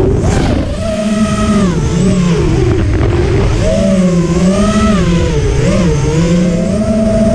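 Brushless motors and RaceKraft 5051 five-inch propellers of a QAV210 FPV freestyle quadcopter whining in flight, the pitch rising and falling with the throttle through several dips, then holding steady near the end.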